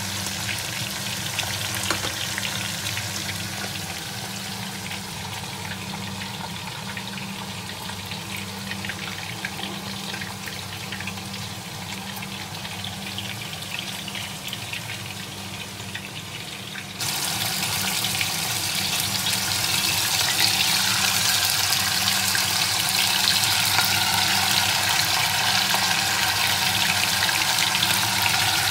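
Hot oil bubbling and sizzling in a pot as food deep-fries, a steady crackling hiss. It turns suddenly louder and brighter a little past halfway.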